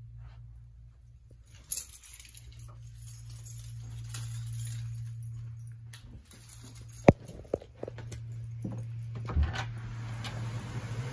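Footsteps and handling noise over a steady low hum, with a sharp click about seven seconds in, a second smaller click, then a thump as a glass door is unlatched and opened. Near the end outdoor noise swells through the open door.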